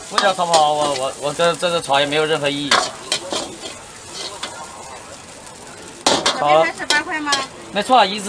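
Steel ladle stir-frying chopped noodles in a wok: steady sizzling, with scraping and sharp metal clanks of the ladle against the pan.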